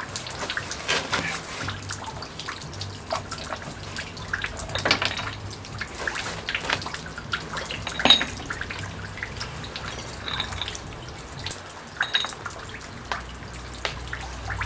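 Small metal parts of a scooter's CVT variator clicking and clinking as they are handled and taken apart, including the roller weights. There is an irregular run of light clicks and knocks, with a sharper ringing metallic clink about eight seconds in.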